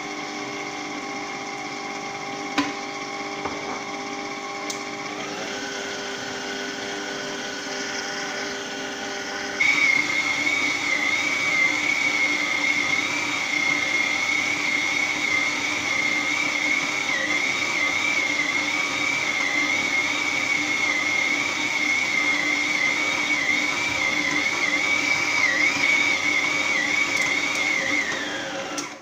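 Electric stand mixer's motor running as it kneads bread dough while water is worked in. Its steady whine steps up in pitch about five seconds in, then turns louder and higher from about ten seconds in, and cuts off at the very end.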